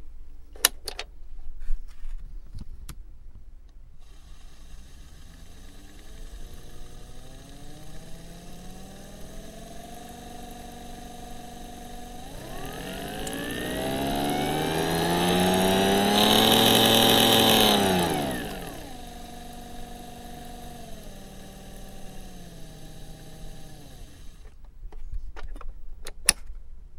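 Small DC motor run from a bench power supply, its whine climbing in pitch in steps as the voltage is turned up. It is loudest and highest about two-thirds of the way through, then steps back down and stops near the end. A couple of clicks near the start.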